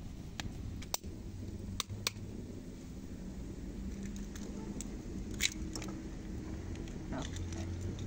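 Scattered short, sharp clicks and taps over a low steady background: a metal spoon tapping and cracking an egg's shell, amid the crackle of a small wood fire.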